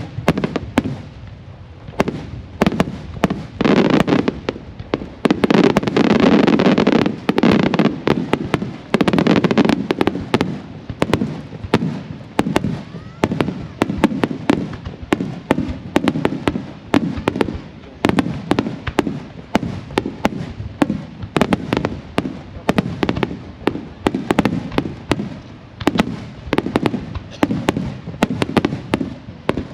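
Aerial fireworks shells bursting in rapid succession: dozens of sharp booming reports that run together into an almost continuous barrage from about four to ten seconds in, then keep going as quick separate bangs.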